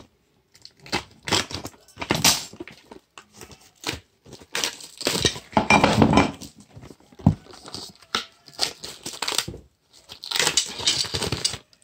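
Brake-shoe packaging being cut and torn open with a knife, rustling and crinkling in irregular bursts with a few sharp clicks.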